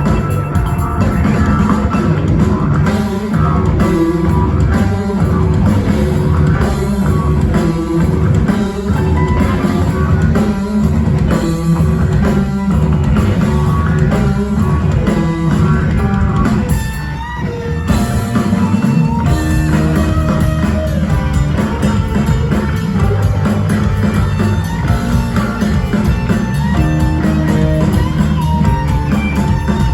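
A rock band playing, with guitars over a drum kit and a steady, full sound, easing off briefly a little past halfway before coming back in.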